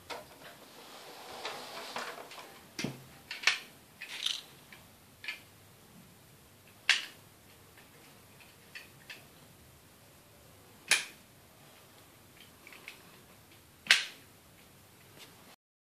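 Sharp clicks and knocks of a hard plastic toy fire engine being handled, scattered a few seconds apart, with a soft rustle over the first few seconds; the loudest clicks come about seven, eleven and fourteen seconds in.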